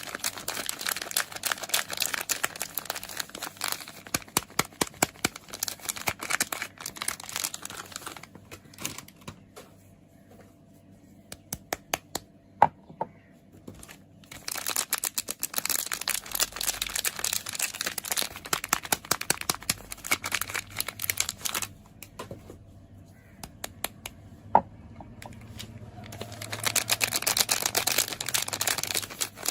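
Soap packaging being unwrapped by hand: the wrapper crinkles and crackles in dense stretches, with pauses of scattered single ticks, a few seconds at a time.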